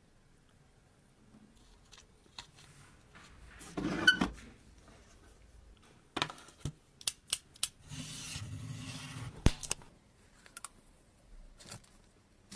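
Hand-work noises on a small diecast model car: a scrape about four seconds in, then a run of sharp clicks and snips, and about two seconds of steady rasping near the middle.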